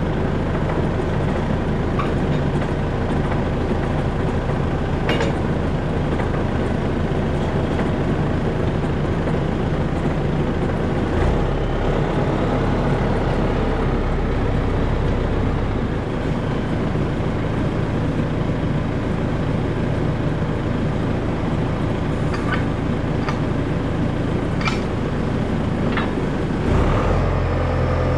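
John Deere tractor's diesel engine running steadily just after starting, with a few faint clicks. Near the end the engine gets louder as the hydraulics move the forklift mast on the three-point linkage.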